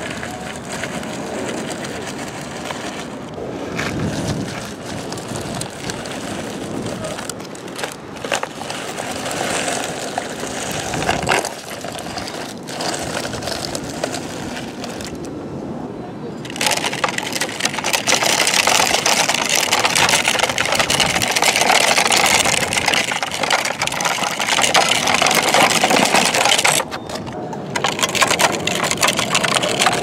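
Toy construction trucks' tracks and rubber tyres rolling and scraping over gritty, sand-covered pavement, with a crunching, crackly grind and occasional knocks. The grinding grows louder about halfway through as the wheels pass close by.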